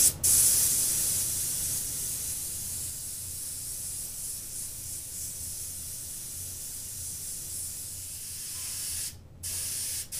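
Airbrush spraying paint in a steady hiss for an antiquing coat of charcoal over a fish replica. Short bursts come right at the start and a brief pause about a second before the end, as the trigger is let off.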